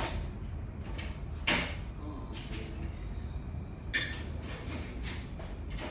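Rummaging through tools: scattered knocks and clicks of tools and a drawer or box being handled while hunting for a Torx driver, over a steady low hum.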